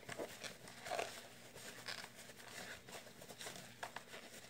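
Faint rustling with scattered light clicks: a cloth or paper towel wiping the outside of a freshly reassembled Abu Garcia baitcasting reel, with small knocks as the reel is handled.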